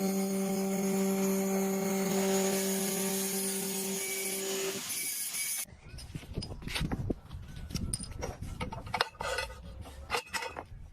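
A machine running with a steady hum and hiss, then, after an abrupt cut about halfway through, irregular scraping, rubbing and sharp clicks of hand tools working material.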